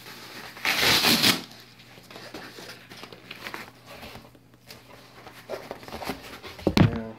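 A cardboard shipping box is opened and handled. A loud rip comes about a second in, followed by softer rustling and scraping of cardboard, then a brief louder bump near the end.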